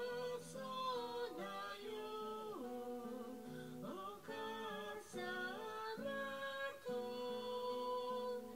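Background music: plucked acoustic guitar chords under a sustained, gliding melody line.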